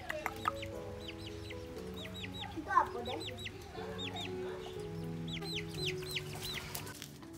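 Young chicks peeping: short high calls that come in quick clusters of two to four, with one louder call about three seconds in. Soft background music plays underneath.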